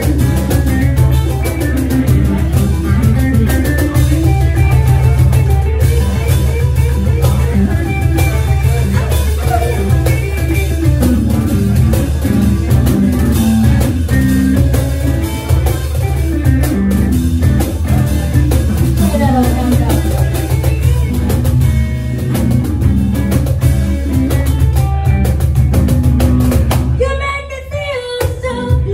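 Live band music: a hollow-body electric guitar playing over a cajón beat, with a woman singing at times. The music dips briefly near the end before her voice comes in again.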